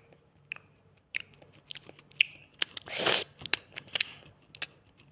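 Someone eating a taco close to the microphone: bites, chewing and wet mouth clicks, with one louder, longer noise about three seconds in.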